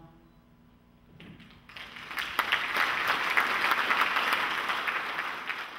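The last acoustic guitar chord rings out and fades, then an audience breaks into applause about two seconds in, steady dense clapping that lasts to the end.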